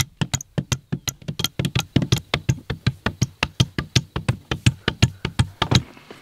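Wooden hand rammers tamping earth into rammed-earth (tapia) formwork, with two or more people striking in a quick, regular rhythm of about six thuds a second. The thuds stop shortly before the end.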